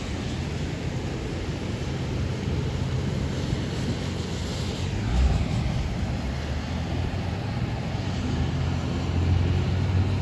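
Thunderstorm outside an open window: a steady rush of rain and wind with a low rumble that builds toward the end, and a brief low thump about five seconds in.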